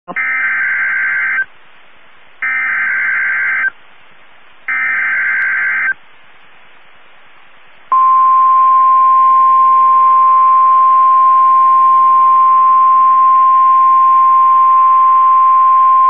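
NOAA Weather Radio emergency alert from WXK38 Amarillo: the three data bursts of a Specific Area Message Encoding (SAME) header, each just over a second long and about a second apart, with radio hiss between them. At about eight seconds the steady single-pitch 1050 Hz warning alarm tone starts, signalling a severe thunderstorm warning.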